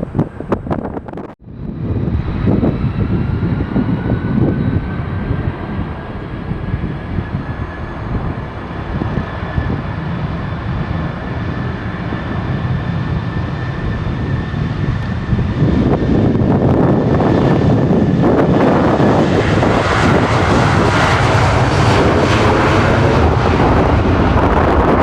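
Boeing 757's twin jet engines on approach: a high whine over a low rumble, swelling into a loud roar about two-thirds in as the jet comes close, with wind buffeting the microphone.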